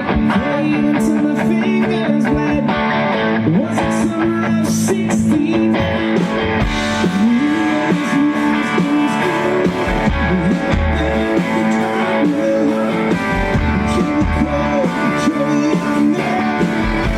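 Amplified live band music, guitar-led with strumming.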